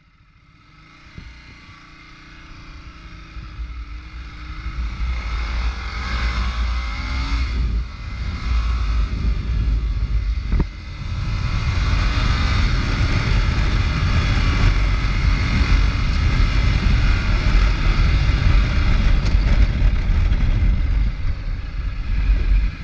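Ducati Multistrada V-twin motorcycle riding along, the engine running under heavy wind rush on the on-bike camera's microphone. It grows louder over the first few seconds, with a short drop in level twice, near the middle.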